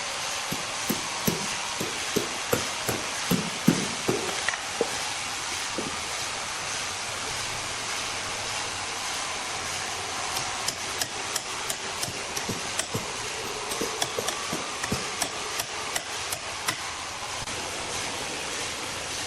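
Repeated sharp knocks, like hammer blows, about two or three a second, in two runs over a steady hiss.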